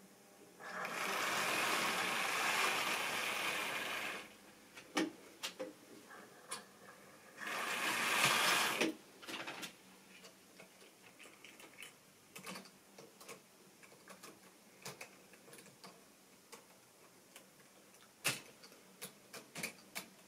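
Model railway locomotive handled by hand on the track: scattered small clicks and knocks of metal and plastic, with two bursts of steady hiss-like noise, the first about three seconds long near the start and a shorter one about halfway through.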